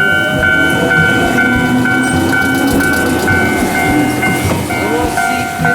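Railway level-crossing warning bell ringing about twice a second, with a Gakunan Railway electric train running on the rails underneath.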